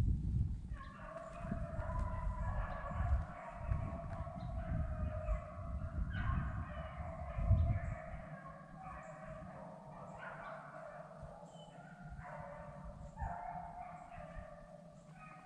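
A pack of beagles baying steadily on a rabbit's trail, their long, overlapping cries following one after another. A low rumble on the microphone is heard in the first half.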